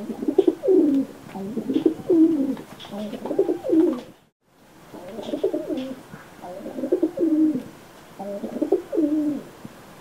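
Domestic pigeons cooing: a run of repeated rolling coo phrases, each under a second long, one after another. The sound cuts out completely for about half a second around four seconds in.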